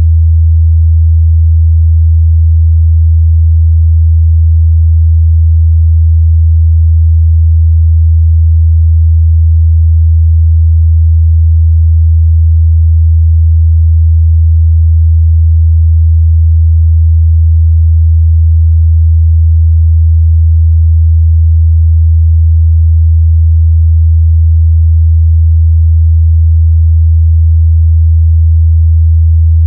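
Steady, unbroken 81 Hz sine test tone, a single low bass hum with no other sound.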